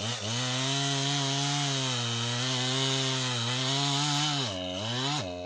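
Poulan Pro PR5020 two-stroke chainsaw held at full throttle while cutting through a log, its pitch sagging a little under load. About four and a half seconds in the throttle is let off, blipped once, and the engine drops back toward idle.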